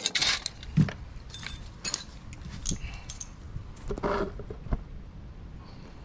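Metal bike-rack parts and bolts clinking and rattling as they are handled. There is a loud rattle at the start, a dull thud about a second in, another rattle around four seconds in and a sharp knock soon after.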